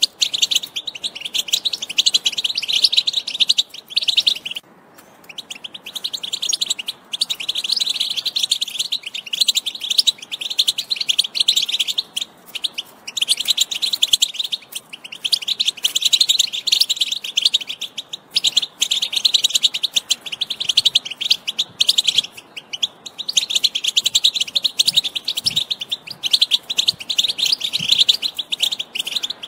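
European goldfinch singing: a fast, twittering song in long phrases of several seconds, each broken off by a short pause.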